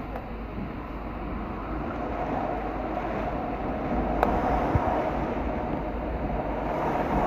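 Heavy rain pouring down in strong wind, a steady noisy rush with a low rumble of gusts buffeting the microphone. A single sharp knock about four seconds in.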